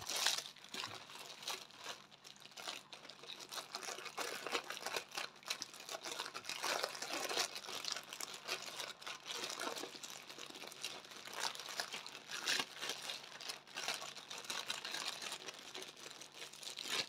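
Packaging crinkling and rustling in irregular handfuls as a diamond painting kit is worked out of its long sleeve, with small crackles and an occasional tearing sound.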